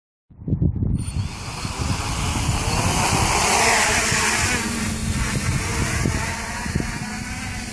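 Reptile Aphid X450 quadcopter's electric motors and propellers spinning up and whirring as it lifts off and hovers low. The whine rises and falls with the throttle and is loudest about three to four seconds in. A low rumble of wind on the microphone runs underneath.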